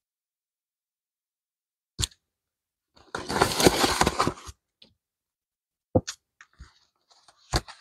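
Crinkling of a plastic binder sleeve and paper bills as cash is pushed into the pocket, lasting about a second and a half. A sharp click comes just before it, and a few scattered clicks follow near the end.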